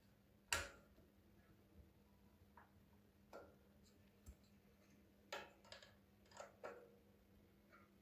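Quiet, scattered clicks and ticks of a metal Allen key working the caliper mounting bolts of a bicycle mechanical disc brake, the loudest about half a second in, as the bolts are tightened with the brake lever held to centre the caliper on the rotor.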